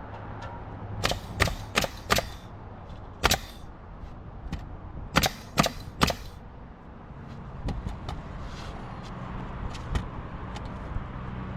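Sharp knocks from roofing work, like hammer blows: four in quick succession in the first couple of seconds, one more, then three close together a little past the middle, followed by lighter taps. A low steady hum runs underneath.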